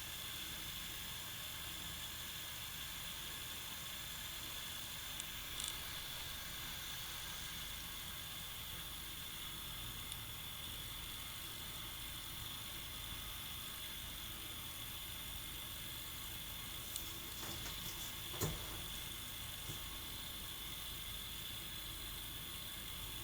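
Steady background hiss with a faint, constant high-pitched whine, and a few faint clicks about a third of the way in and again a little past the middle.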